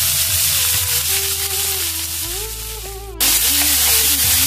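Chopped cowpea leaves sizzling in hot coconut oil in a kadai as they are added to the tempering and stirred; the frying hiss drops briefly and comes back louder about three seconds in. Soft background music runs underneath.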